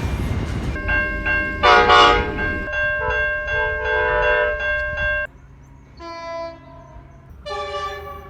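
Diesel locomotive air horn sounding over the rumble of a passing train: one long blast that cuts off sharply about five seconds in, then two shorter, quieter blasts.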